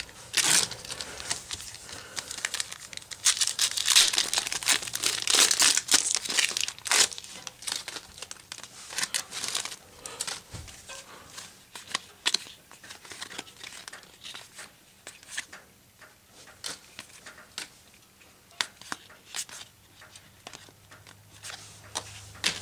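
Foil trading-card pack wrapper crinkling and tearing open, loudest over the first half, followed by quieter scattered clicks as the cards are leafed through.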